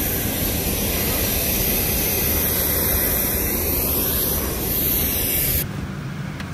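Steady rushing jet aircraft noise on an airport apron, heard from the boarding stairs. Near the end it cuts to a quieter aircraft-cabin hum.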